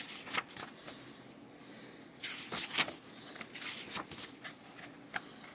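Pages of a paperback book being turned by hand: short dry paper rustles and flicks, with the longest run of rustling a little past two seconds in.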